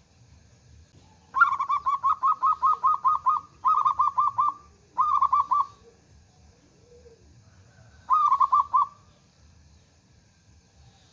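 Zebra dove (perkutut) cooing: four runs of quick staccato notes, the first and longest of about ten notes, two shorter runs close behind, and one more after a pause of a couple of seconds.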